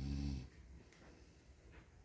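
A single low snore, ending about half a second in.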